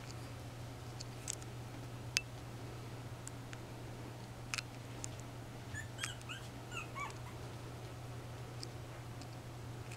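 Three-week-old Norwich terrier puppies whimpering: a handful of short, high squeaks bunched together a little past the middle, with a few faint clicks scattered around them, over a steady low hum.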